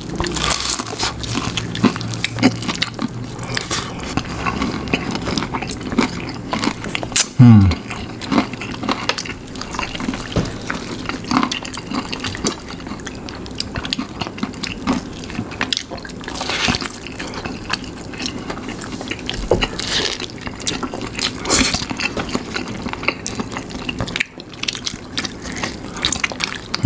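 Close-up eating sounds of fried chicken coated in spicy sauce: biting, chewing and wet mouth smacks, one after another. About seven and a half seconds in comes a short, louder low sound that falls in pitch.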